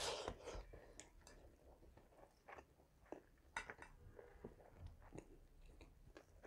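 Faint chewing of a mouthful of chicken pulao (rice and chicken), with scattered soft wet clicks and smacks.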